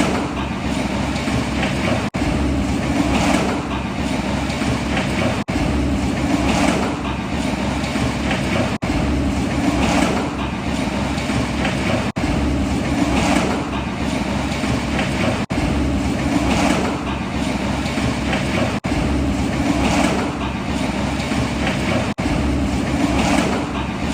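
Small electric motors of a remote-control toy vehicle running steadily, swelling about every three seconds, with brief sudden dropouts at even intervals.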